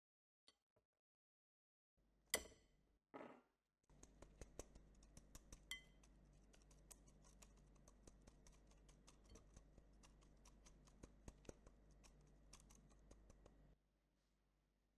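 A floured turkey shank shaken in a fine metal mesh sieve over a glass bowl to knock off the excess flour: a quiet, rapid, irregular ticking and light rattling that goes on for about ten seconds and stops suddenly. A sharp clink comes a couple of seconds in, before the shaking starts.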